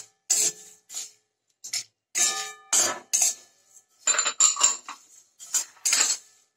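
Steel spatula scraping and clinking against a steel kadai, stirring whole spices (coriander and cumin seeds, dried red chillies, cinnamon, cardamom, cloves) as they dry-roast without oil. A string of short scraping strokes, with a brief pause about a second in.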